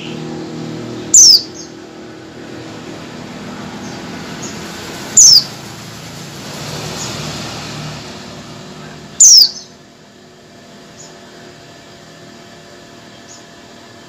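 Caged female pleci (white-eye) giving three sharp, very short calls that sweep downward in pitch, about four seconds apart, with a few faint chirps between. A vehicle engine runs in the background and fades away after the third call.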